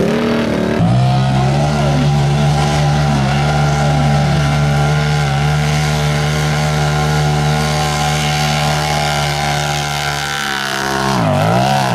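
Off-road racing machine's engine running hard through a mud bog pit at a steady pitch for most of the stretch, then revving up and down near the end.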